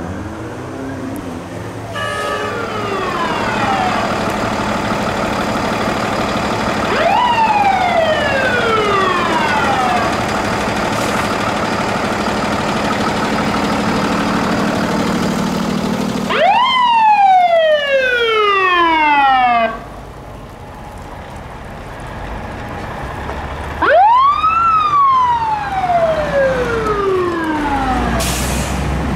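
Emergency-vehicle siren wailing in short rises and falls: the pitch shoots up quickly and glides down over a few seconds, four times.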